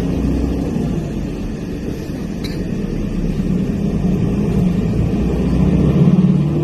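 Passenger van running on the road, heard from inside the cabin: steady engine hum and road rumble that grows louder about six seconds in.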